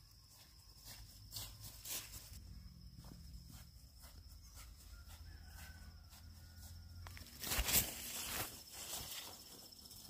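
Footsteps brushing through grass and leaves, with a louder close rustle about three-quarters of the way in, over a steady high trill of insects.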